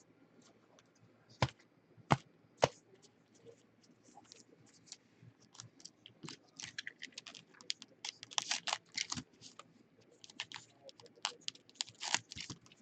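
Close handling of trading cards and their foil packs: three sharp clicks early on, then from about halfway a quick run of crisp clicks and crinkles as cards and wrappers are handled.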